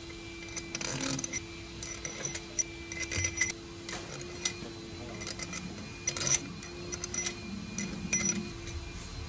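Hand tools and metal engine parts clicking and clinking irregularly, some strikes ringing briefly, over a steady low hum.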